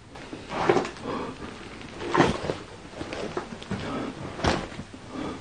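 Scattered knocks, scuffs and rustling of someone moving about and handling things, with three louder knocks about a second, two seconds and four and a half seconds in, the middle one the loudest.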